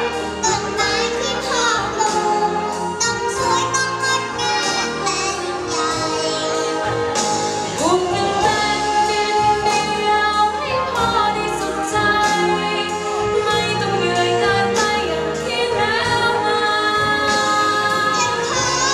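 Wind band playing a slow piece with a singer's voice carried over the band.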